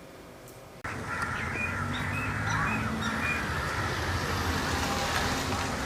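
Birds calling, several short chirps over a steady outdoor background hum, which starts abruptly about a second in after a moment of quiet room tone.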